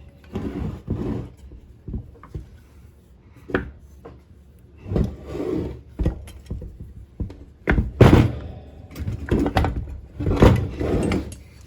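Irregular knocks, clunks and scraping of two-stroke lawnmower engine parts being handled and worked apart, in uneven bursts, the loudest about eight seconds in and again near the end.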